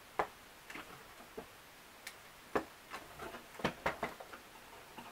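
Adjustment dials on a Dritz Twin-Fit dress form clicking as they are turned to expand the form: a string of short, irregularly spaced clicks.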